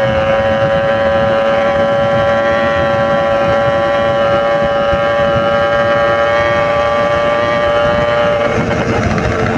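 Yamaha RX-King's single-cylinder two-stroke engine running at steady revs under way, a held note that wavers near the end, with wind rushing over the microphone.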